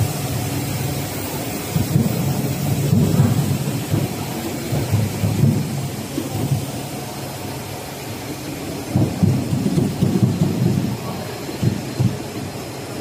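Steady running noise of an instant noodle production line's machinery and conveyors, with irregular low rumbling surges that rise and fall several times.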